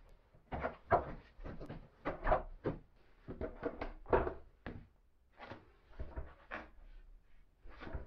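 Irregular series of clunks and clicks as toggle-clamp floor locks on a plywood tool cart are pressed down by foot, driving their rubber feet onto the concrete floor to lock the cart in place.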